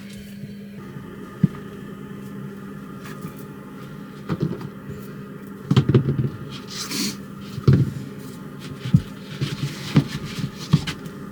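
Irregular knocks and clatters of things being handled and cupboards worked in a van's small interior, over a steady low hum. The knocks grow more frequent from about four seconds in.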